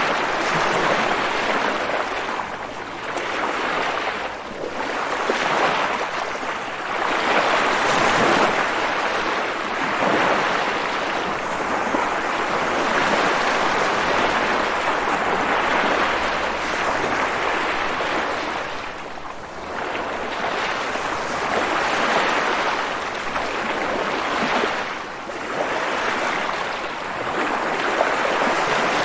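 Continuous rushing water, a dense hiss that swells and eases every few seconds.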